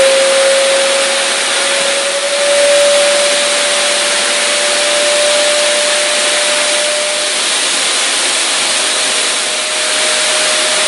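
An electric blower motor running: steady rushing air with a whine that creeps slowly up in pitch.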